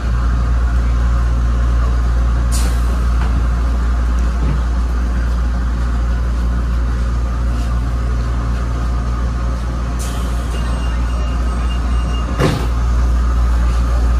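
ABB N5 light-rail car running with a steady low hum and rumble, broken by a few sharp clicks, a brief thin high tone, and a sharp clunk near the end.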